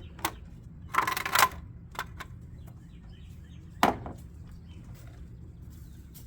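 Knocks and clatter of hands working on parts in a truck's engine bay, with a short scraping rattle about a second in and a sharp knock near the middle, over a steady low hum.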